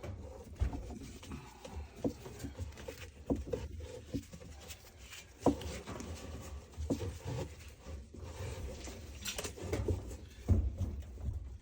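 Irregular knocks, scrapes and rustling as a cargo strap is worked under a seized wash plate in a Maytag Bravos washer tub and tugged on by hand, over the rumble of a hand-held phone being jostled. The loudest knock comes about ten and a half seconds in.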